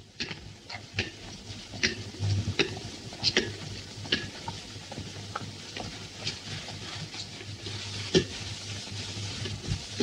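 Hiss and crackle of a worn 1931 optical film soundtrack, with a low hum underneath. Over it, a child's ball bounces on pavement: sharp thuds about one every 0.8 seconds through the first four seconds, and a few more near the end.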